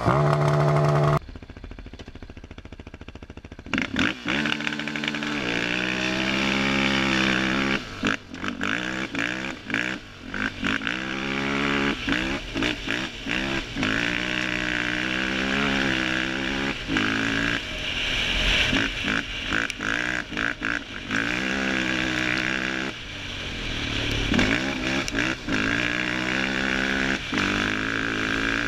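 Yamaha Raptor 700 quad's single-cylinder four-stroke engine under way, quieter for a few seconds near the start and then revving up and down over and over as the rider opens the throttle, shifts and backs off.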